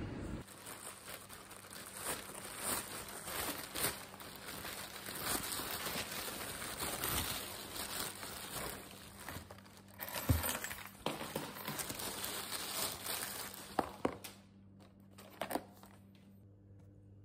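Thin plastic carrier bag rustling and crinkling as it is untied and opened and takeaway containers are lifted out. A thump about ten seconds in and a couple of sharp knocks near the end as plastic food containers are set down on the counter.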